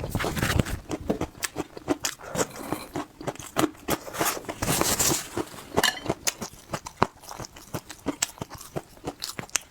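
Close-up chewing and biting of crunchy food: many crisp crunches in quick, uneven succession.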